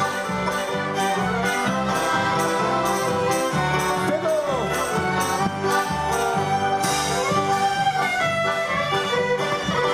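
Live Ukrainian folk band playing a polka: accordions and fiddles carry the tune over acoustic guitar and banjo, with a steady bass drum and cymbal beat.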